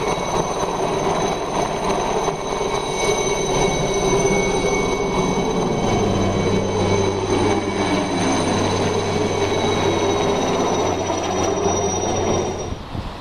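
Small helicopter lifting off and flying away, with a steady high turbine whine over heavy rotor noise that cuts off near the end.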